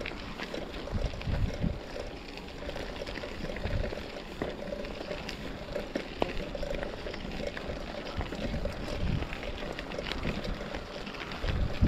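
Bicycle rolling over a rough trail: steady tyre and riding noise with scattered rattles and knocks from the bike, and wind buffeting the microphone in low rumbles.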